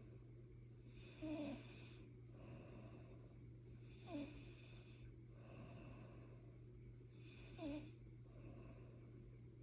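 Faint snoring of a sleeper: slow, airy breaths with a short, sharper snort roughly every three seconds, three in all.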